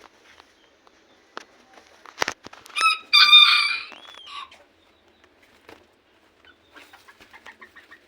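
A rooster crowing once, a single crow of about a second and a half, just after a sharp knock. Soft, faint clucking follows near the end.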